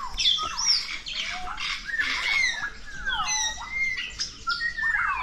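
Many birds chirping and whistling at once, a busy chorus of short overlapping calls that slide up and down in pitch.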